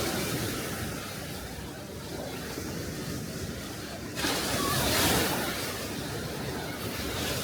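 Small sea waves breaking and washing up the shore, with one louder wave surging in about four seconds in and then washing back down.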